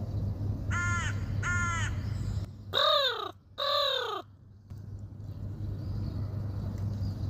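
Crow cawing four times in two pairs: two higher caws, then two lower, louder ones, each call arching up and down in pitch.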